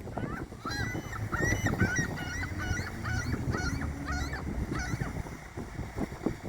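Seagulls calling: a quick run of short, harsh cries, about three a second, that stops about five seconds in, over a low wind rumble.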